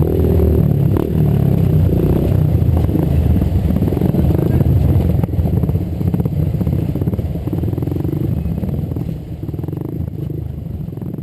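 Motorcycle engines running, a dense low rumble that eases off slightly near the end.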